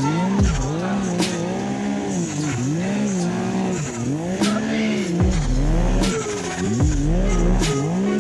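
Snowmobile engine revving up and down over and over, its pitch rising and falling a little more than once a second as the throttle is worked, with a few sharp knocks. A low rumble joins about five seconds in.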